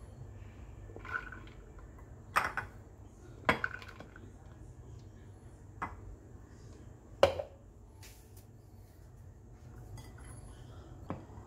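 Pomegranate seeds scooped by hand from a ceramic plate into a clear blender cup: a handful of short, sharp clinks and knocks of fingers and seeds against the plate and cup, the loudest about seven seconds in.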